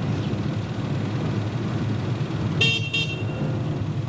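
Steady low rumble of a car on the road, with a car horn giving two short toots about two and a half seconds in.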